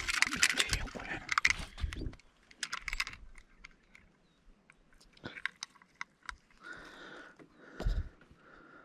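Clicks, rattles and rustling as a freshly caught largemouth bass and a fish scale are handled in the boat: dense for about two seconds, then scattered clicks and a low thump near the end.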